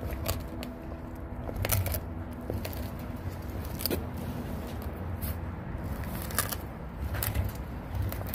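Adult Lycan Shepherd chewing a whole raw golden pompano, bones and all: irregular wet crunches and sharp clicks, roughly one a second, as its teeth work through the fish.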